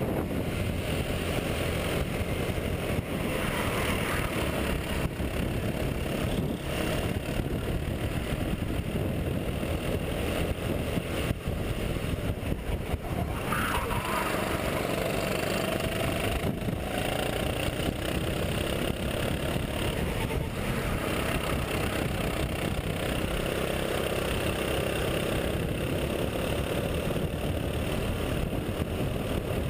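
Onboard sound of a Sodi RT8 rental kart's single-cylinder four-stroke engine running hard under racing load, mixed with wind rushing over the camera microphone. The engine note rises and falls a little as the kart goes through the corners.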